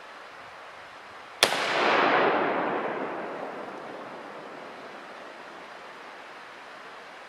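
A single shot from a Mauser K98 bolt-action rifle, chambered in 7.92×57mm Mauser, about a second and a half in. A long echo swells just after the crack and then fades away over several seconds.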